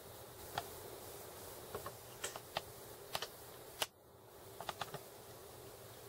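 Typing on a computer keyboard: about a dozen short clicks in small irregular clusters, one louder than the rest just past the middle.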